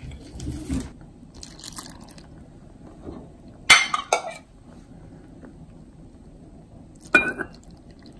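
A stainless steel cup clinks against glass while soy-vinegar brine is scooped from a glass bowl and poured into a glass jar of scallions: two sharp clinks about halfway through and another, briefly ringing, near the end, with faint liquid sounds in between.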